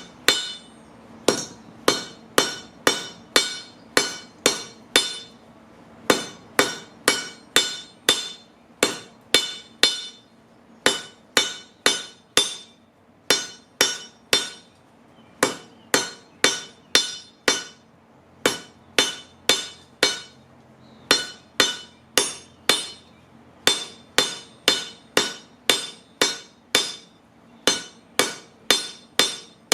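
Hammer blows on a rail spike on a railroad-track anvil, tapering it. Strikes come about two to three a second in runs of several blows with short pauses between, each with a clear metallic ring.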